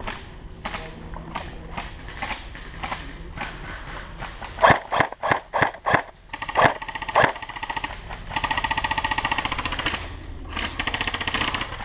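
Airsoft guns firing: a few single shots, then two long full-auto bursts of rapid clicking, one starting about eight seconds in and a shorter one near the end.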